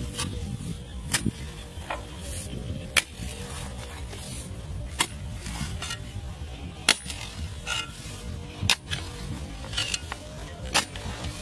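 A hand digging tool chopping into hard, dry dirt: sharp strikes every second or two, not quite regular, over a low rumble.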